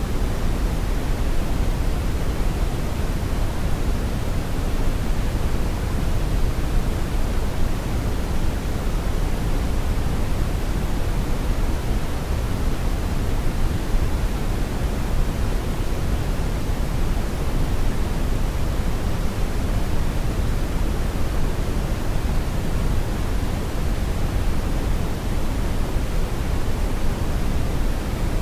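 Brown noise: a steady, unbroken rumbling hiss, strongest in the low end and fading toward the highs, with no change or events.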